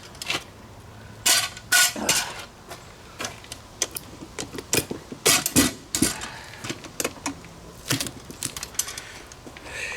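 Hands working on table hardware: irregular clicks, knocks and short scrapes of parts being handled and worked loose.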